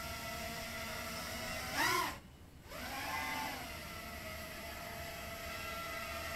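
Realacc RX130 micro quadcopter's four Walkera Rodeo 150 (1306) brushless motors spinning 3-inch three-blade props: a steady whine as it hovers and climbs. About two seconds in, the pitch rises sharply and the sound peaks. Then it drops out for about half a second before the motors come back, rising and falling in pitch, and settle to a steady whine.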